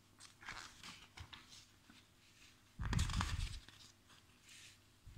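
Magazine pages being turned and handled: soft paper rustles, with a louder rustle and a dull thump about three seconds in.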